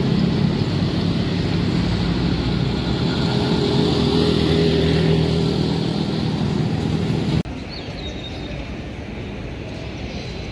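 Street traffic: motorcycle and auto-rickshaw engines running close by, with a steady engine drone. About seven seconds in it cuts off abruptly to the quieter, steady hum of a station platform.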